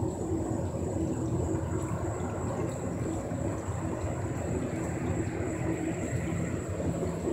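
Water washing along the hull of a small electric boat under way, with a low steady hum beneath it.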